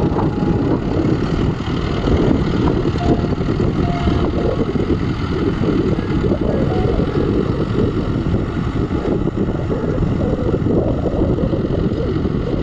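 Mahindra Novo 655 4WD tractor's diesel engine running steadily under heavy load while pulling a plough through hard soil.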